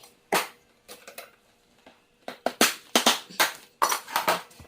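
Irregular knocks and clatters of hard objects being handled and set down, sparse at first and bunched together in the second half; no saw is running.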